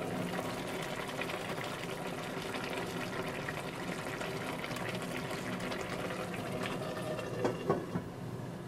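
Mackerel and kimchi braise bubbling at a simmer in an uncovered stainless steel pot. Near the end the steel lid clinks a few times as it is set back onto the rim.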